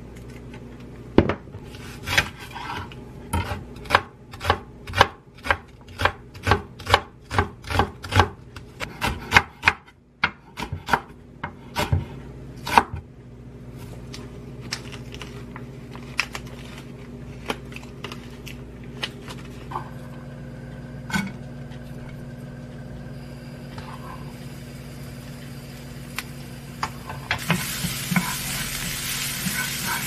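Kitchen knife chopping green onion on a wooden cutting board: a steady run of knocks about two a second for the first dozen seconds, then stopping. Near the end, sliced green onion and minced garlic start sizzling in a frying pan.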